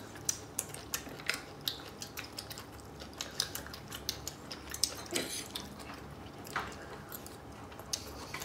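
Metal fork and spoon clicking and scraping against a plate in scattered light clinks, with chewing.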